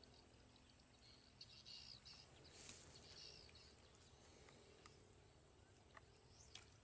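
Near silence: quiet outdoor ambience with a steady high-pitched insect drone, a few faint bird chirps about one to three seconds in, and a few faint ticks near the end.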